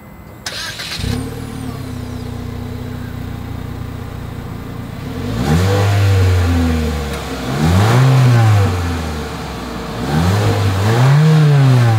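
The 2023 Mitsubishi Eclipse Cross's 1.5-litre turbocharged four-cylinder, heard at its single exhaust outlet. It starts up about a second in and settles into a steady idle, then is revved three times, each rev rising and falling over a second or two.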